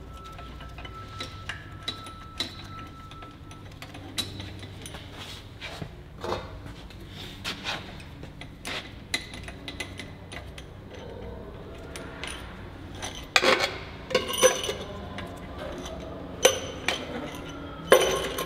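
Scattered metallic clicks and clinks as the cylinder head bolts of a Peugeot 309 GTI 1.9 engine are backed out and set down with the tools. The clinks grow louder and more frequent in the last few seconds.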